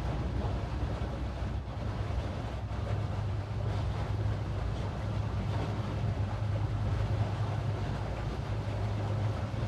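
Towboat engine running steadily at low speed with a constant low drone, mixed with wind noise on the microphone.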